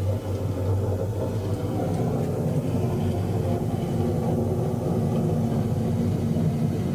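Simulated thunderstorm sound effect: a steady, deep rumble of thunder from the paludarium's storm show.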